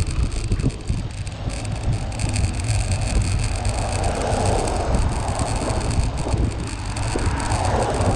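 Wind buffeting the microphone of a camera riding along on a bicycle, a steady low rumble, with road and tyre noise, swelling in hiss a few seconds in and again near the end.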